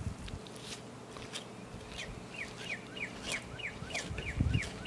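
A bird calling: a rapid series of short, falling chirps, about four a second, starting about two seconds in. Faint clicks of knife work on the turkey sound beneath.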